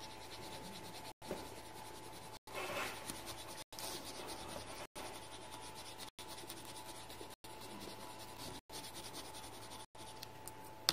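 Coloured pencil scratching on paper in short, quick strokes as a small area of a drawing is coloured in, over a faint steady hum and broken by brief dropouts about once a second.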